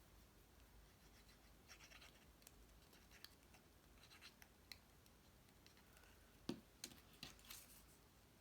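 Faint handling of cardstock pieces on a work table: light scratchy rustles and small taps, with a sharper knock about six and a half seconds in and a few quick taps after it.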